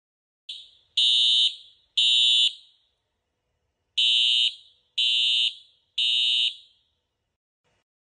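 Simplex TrueAlert ES fire alarm horn sounding in the temporal-three evacuation pattern: half-second blasts of a steady high tone, one each second in groups of three, then a pause of about a second and a half. The sound cuts in mid-cycle, so there is a clipped blast and two more before the pause and a full group of three after it, each blast with a short echoing tail.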